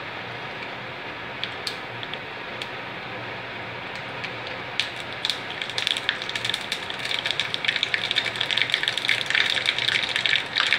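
Mustard seeds heating in hot sesame oil in a small tempering pan: a steady sizzle, then from about five seconds in the seeds begin to crackle and pop, the popping growing denser and louder toward the end. This is the seeds bursting as the tempering starts.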